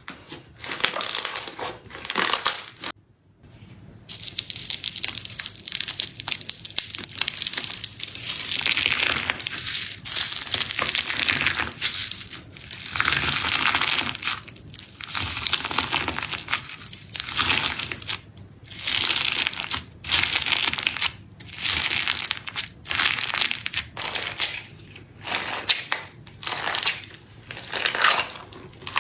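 Slime in a cup being pressed and squished by hand, in repeated crackly, crunchy strokes about one every one to two seconds, with a brief pause about three seconds in.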